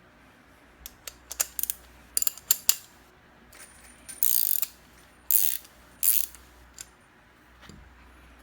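Stainless steel faucet parts being handled while the faucet is taken apart: a quick run of sharp metal clicks, then three short rasping scrapes, with a faint knock near the end.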